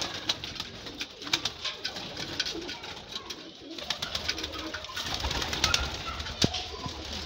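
Flock of domestic pigeons cooing softly while feeding, with many quick sharp taps of beaks pecking rice off the ground and a metal tray. A low rumble and a single knock come near the end.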